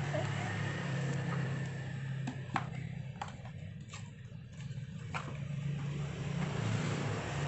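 Cardboard mixer box being handled and opened, giving a few sharp clicks and taps of packaging between about two and five seconds in, over a steady low hum.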